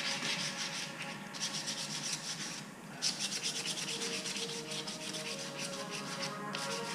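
Wet sanding of automotive primer on a wheel face by hand with 400-grit paper: quick back-and-forth rubbing strokes, stopping briefly twice.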